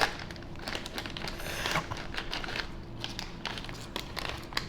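Plastic snack bag crinkling and rustling as it is handled and opened, with many small crackles and a longer rustle about a second and a half in.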